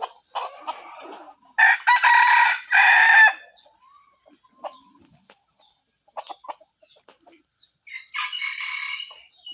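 Red junglefowl rooster crowing loudly, a short crow about one and a half seconds long, then a fainter crow near the end, with scattered small clicks and rustles in between.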